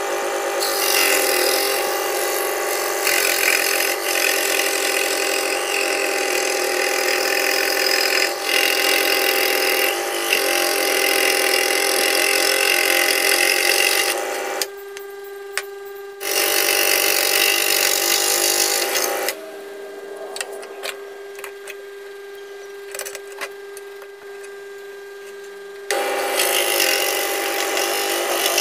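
Benchtop scroll saw running with a steady motor hum, its reciprocating blade cutting small discs from thin wood. The cutting noise is loud for most of the time and drops away twice, briefly about halfway through and for several seconds after that, while the saw keeps humming.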